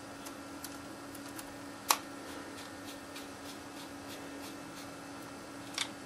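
Small precision screwdriver turning a tiny screw into a Sony HDR-SR10 camcorder's casing: faint scattered ticks and scrapes, with a sharper click about two seconds in and another near the end. A steady low hum runs underneath.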